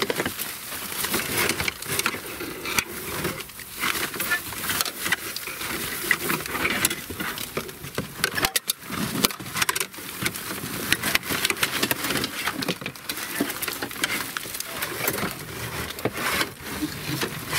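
Green plastic mesh netting and plastic bags being dragged and bundled out of a plastic storage box. The sound is continuous rustling and crinkling, with many small knocks against the box.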